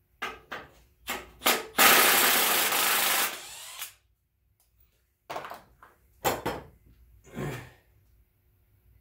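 A power tool runs in one burst of about a second and a half, with short knocks and scrapes of metal parts before and after it, as the front cover of an NP231 transfer case is unbolted and taken off.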